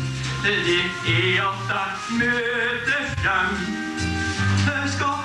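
A man singing a Norwegian song (vise) into a microphone over instrumental accompaniment, with held bass notes changing about once a second.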